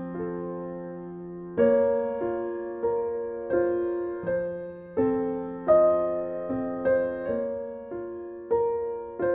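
Soft background piano music: chords and single notes struck about once or twice a second, each fading away.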